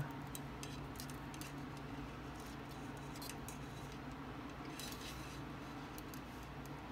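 Faint light clicks and scrapes of fine stranded steel snare cable sliding through small metal ferrules as the snare loop is choked down by hand, over a steady low hum.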